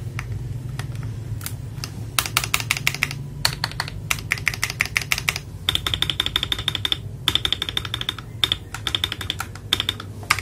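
Typing on an FL Esports MK870 mechanical keyboard fitted with AKKO Silver switches. A few scattered key presses come first. About two seconds in, fast runs of crisp keystrokes begin and go on with short pauses between them.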